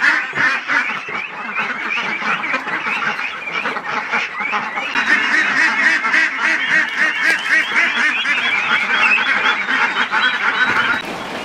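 A large flock of domestic ducks quacking together in a dense, continuous clamour as they crowd in for feed, busiest in the second half and falling away just before the end.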